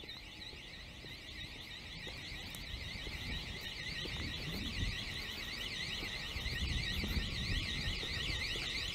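Electronic warning alarm sounding a rapid up-and-down warble, getting steadily louder, with low rumbling underneath.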